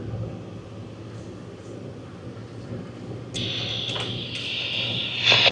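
Steady low engine drone heard inside a 4x4's cabin. About three seconds in, a hiss like two-way radio static comes on and lasts about two seconds.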